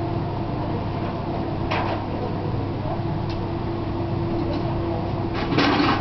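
Blacksmith's forge with a steady hum, typical of the forge's air blower running. Two brief clatters of metal tools, such as tongs at the fire, break through it, a small one about two seconds in and a louder one near the end.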